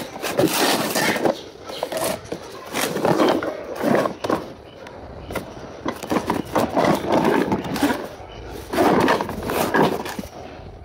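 A cardboard box of brake shoes handled and turned over in the hands: irregular scraping, rubbing and knocking of cardboard.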